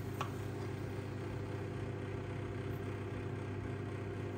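A steady mechanical hum from a motor or fan, even in level throughout, with a faint click about a fifth of a second in.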